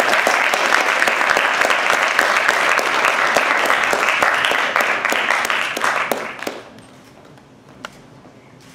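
Audience applauding, many hands clapping together, dying away about six and a half seconds in.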